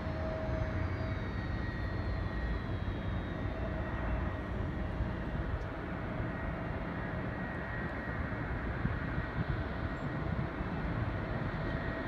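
Jet airliner engines across an airfield: a steady rumble and hiss with a thin whine, one whine falling in pitch over the first few seconds as a landed regional jet's engines spool down on the runway.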